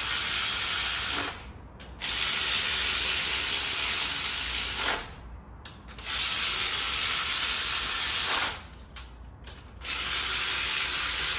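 Air ratchet running bolts down on the cylinder head of an LY5 5.3L V8, snugging them toward zero lash. It runs in four hissing spells of one to three seconds each, with short pauses between.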